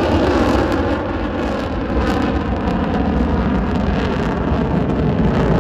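Jet roar from four Blue Angels F/A-18 Super Hornets flying overhead in diamond formation: a loud, steady, deep rumble.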